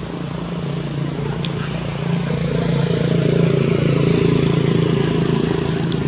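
Engine of a motor vehicle running steadily close by, growing louder over the first few seconds and then easing slightly, as if passing.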